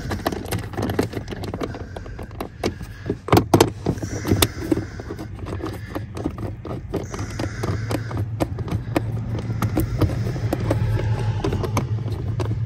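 Irregular sharp clicks and light metal taps as bolts are started by hand into the accelerator pedal bracket and a socket is handled, over a steady low hum.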